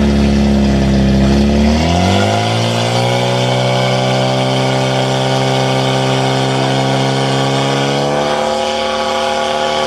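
Portable fire pump's engine revs up about two seconds in, then runs steadily at high revs while it pushes water through the hose lines to the nozzles.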